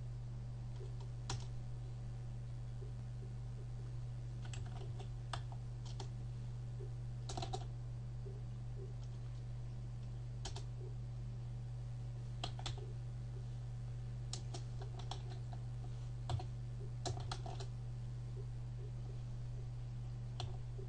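Computer keyboard keystrokes as code is typed: scattered single taps and short runs of a few keys with pauses between, over a steady low hum.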